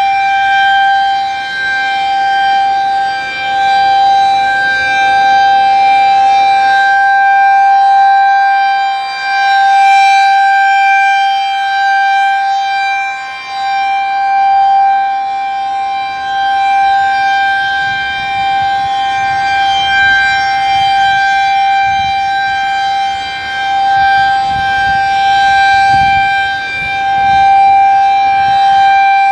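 Refurbished Federal Signal 2001-SRNB outdoor warning siren sounding the Alert signal: one steady, unbroken tone, very loud, that swells and fades every few seconds as the rotating siren head sweeps past.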